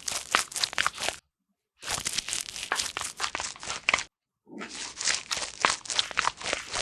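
Crisp crunching and crinkling in three runs, each a dense patter of sharp crackles, separated by short abrupt silences.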